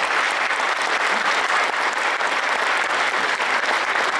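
A large audience applauding, many hands clapping at once in a steady, even roar of claps.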